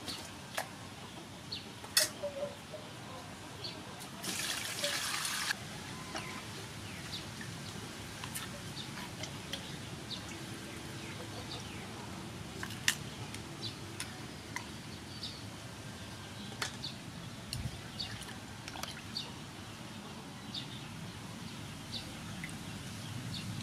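Water splashing and dripping in an aluminium basin as whole squid are washed and rubbed by hand, with many small scattered splashes and clicks. A louder rush of water lasts about a second, about four seconds in.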